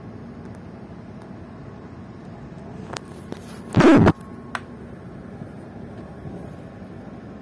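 Steady rumble of a moving train heard from inside the carriage, with a few faint clicks and one brief, much louder burst of noise about four seconds in.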